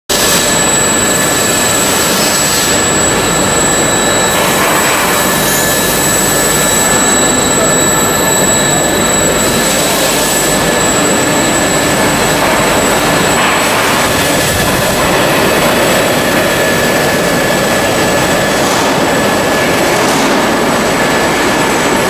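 Plastic corrugated-pipe extrusion line running: a steady, loud whir of the extruder drive motor, corrugator and its cooling blowers, with a thin high whine held over the noise.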